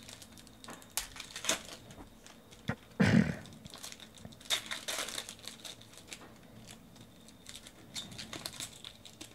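Donruss Optic basketball trading cards being flipped through by hand, a run of small clicks and slides of card against card with crinkly rustling. A short, louder rustle about three seconds in.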